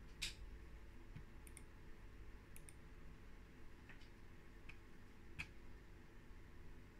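Clicks from operating a computer's pointing device, about six of them spread unevenly over a faint low room hum. The loudest come just after the start and about five and a half seconds in.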